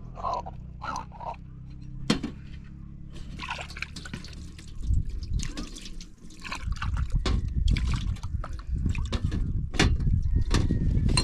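Water splashing and dripping as drinking glasses are washed by hand in a plastic tray over a basin, with light knocks of glass against the tray. A low rumbling noise rises about five seconds in and becomes the loudest sound.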